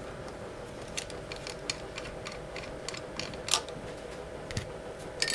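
Scattered small clicks and ticks of metal parts handled by hand as the threaded cap of a Raven Primal paintball marker's high-pressure regulator is unscrewed and taken off, the sharpest click about three and a half seconds in, over a faint steady hum.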